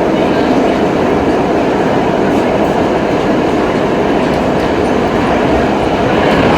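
R32 subway train running along the track, a steady loud rumble of wheels and car body, heard from inside the car.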